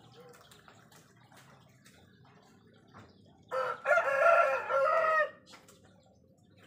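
A rooster crowing once for nearly two seconds, a short first note followed by a long drawn-out one.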